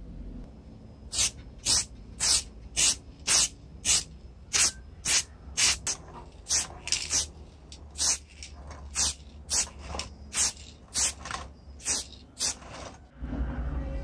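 Spray paint hissing out of an aerosol can in short bursts, about two a second, coating a pencil sharpener housing.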